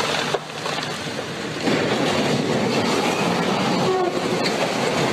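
Train running close by, a steady rumble and clatter of wheels on the rails, which gets abruptly louder about a second and a half in.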